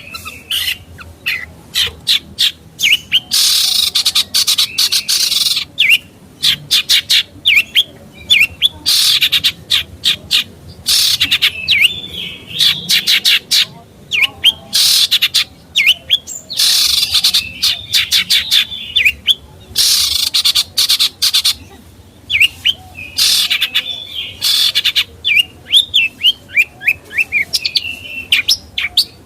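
Caged songbird singing a rapid, varied song of quick chirps and scratchy phrases, broken by short pauses.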